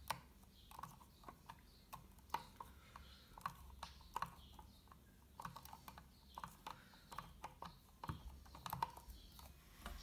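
Faint, irregular small clicks and ticks of a Phillips screwdriver working a small screw on the plastic terminal cover of a refrigerator compressor.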